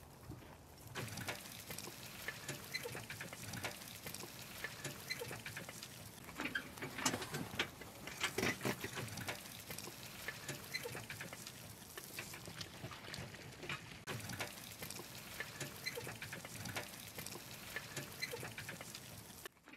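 Horse-drawn wooden cart on car-tyre wheels rolling along a muddy dirt track: a dense, irregular clatter of knocks and rattles from the cart and the horse's hooves, with the wheels squelching through mud and puddles. It is loudest about halfway through and cuts off suddenly just before the end.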